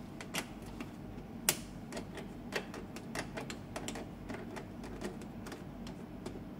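Screwdriver unscrewing the screw of the Epson L360 printer's plastic waste ink pad cover: a string of light, irregular clicks, one sharper than the rest about one and a half seconds in.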